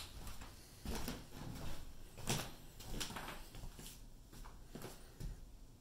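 Irregular light knocks and clicks: footsteps across a bare floor and handling of the phone, in an empty, gutted room.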